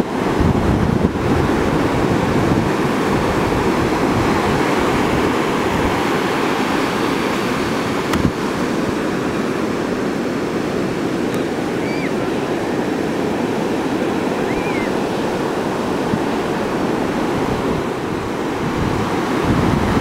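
Atlantic surf: ocean waves breaking and washing in, a steady, continuous rush of water.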